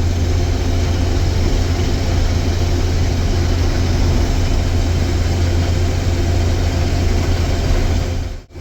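Combine harvester running steadily while harvesting soybeans, a constant low engine drone with the hum of the threshing machinery over it. The sound cuts out for a moment near the end.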